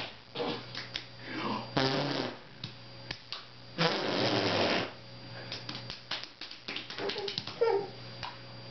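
Raspberries blown onto a toddler's bare back: a long sputtering blow about four seconds in and a shorter one about two seconds in. Short voice sounds with falling pitch and small clicks come between them.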